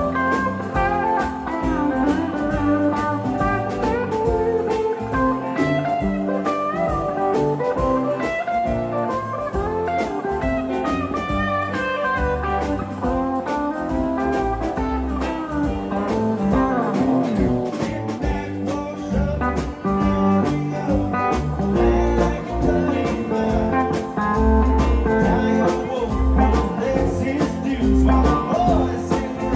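Live band playing a country-tinged rock song on electric guitars, keyboard and drums, heard mostly through the stage monitors from the side of the stage, with a steady drum beat.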